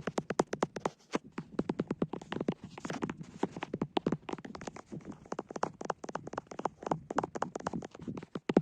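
Fast ASMR tapping with a gibi stick: a quick, irregular run of short sharp taps and clicks, several a second, some louder than others.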